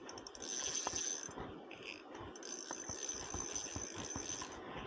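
Spinning reel clicking and whirring in two runs, the second longer, as a large hooked trout is played on the line.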